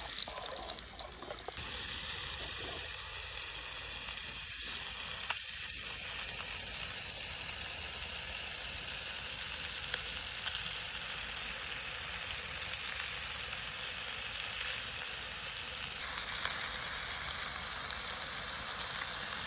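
Pieces of brown trout sizzling as they fry in a pan, a steady hiss of hot fat.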